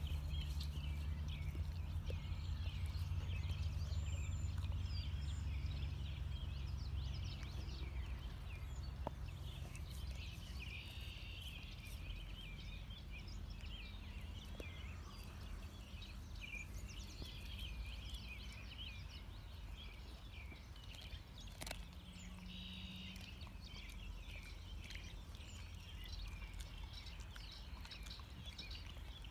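Outdoor ambience of many birds chirping steadily, over a low rumble that is strongest for the first ten seconds or so. Only a few faint clicks stand out.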